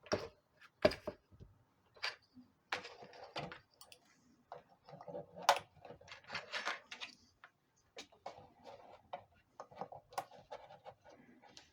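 Irregular clicks, taps and short rustles from hands working small plastic parts and hot-glue tools.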